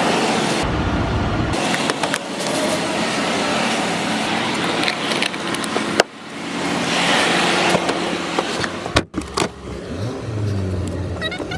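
Car and road noise: a steady rushing hiss, broken by abrupt cuts about six and about nine seconds in.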